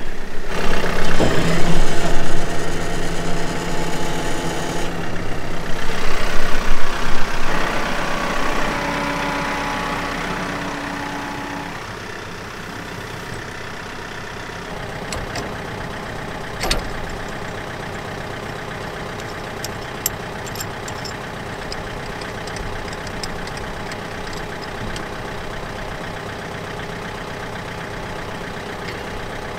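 John Deere 4052 compact tractor's diesel engine running, louder for the first several seconds, then settling to a steady idle. One sharp clank about 17 seconds in and a few light clicks come from the metal three-point top link.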